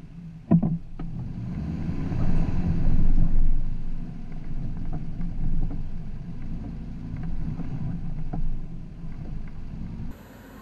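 Off-road vehicle crawling over a rough dirt trail in four-wheel drive: a steady low engine and drivetrain rumble with scattered knocks and rattles from the bumps, and one sharp loud knock about half a second in. Near the end the sound cuts off abruptly to a quieter steady hiss.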